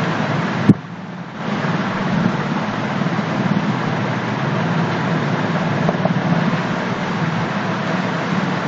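Steady background noise with a low hum, interrupted by a single sharp click just under a second in and a brief drop in level afterwards.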